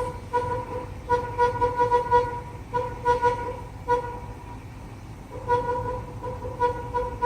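A vehicle horn honking over and over in short, irregular toots, some in quick runs and some single, with a pause of about a second and a half midway.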